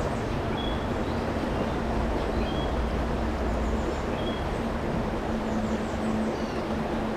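Steady rush of a fast, rocky creek, with a songbird's short high chirps and quick down-slurred notes repeating over it about every second and a half.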